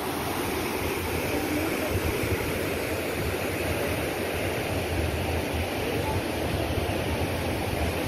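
Swollen, fast-flowing floodwater rushing steadily, with a low rumble underneath.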